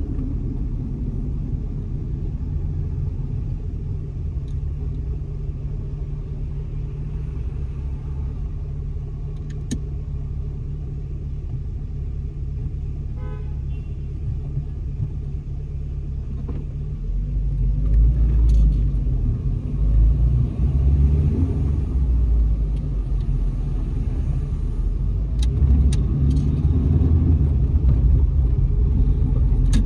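Car driving on city streets: a steady low rumble of engine and tyre noise that grows louder a little past the middle, with a few faint clicks.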